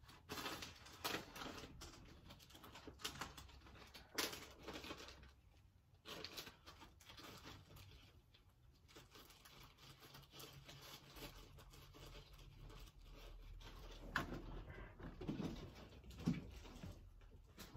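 Faint, scattered rustling with light clicks and knocks from someone handling things in a kitchen; a refrigerator door swings shut near the end.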